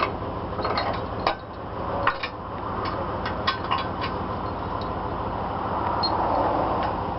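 A heavy vehicle's engine running steadily, with scattered sharp metallic clicks and knocks over it.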